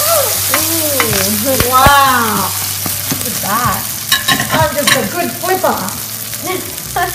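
Pork and potato pancake frying in oil in a non-stick frying pan, a steady sizzle, while two metal spatulas scrape and squeal against the pan surface as the pancake is lifted and turned. Sharp clicks and taps of the spatulas on the pan follow about four to six seconds in.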